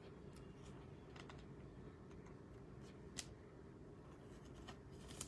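Near silence with a low steady hum and a few faint, scattered light clicks, the clearest about three seconds in.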